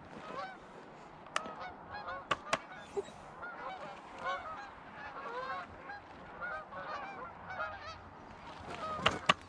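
A flock of geese calling, many overlapping honks on and off, with a few sharp clicks, the loudest near the end.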